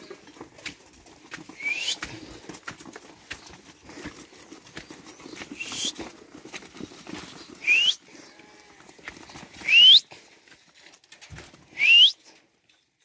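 A flock of sheep moving along a dirt lane, hooves clicking and shuffling on the ground. A person whistles at them in short, sharp rising whistles, five in all about two seconds apart, the last two the loudest, to keep the flock moving.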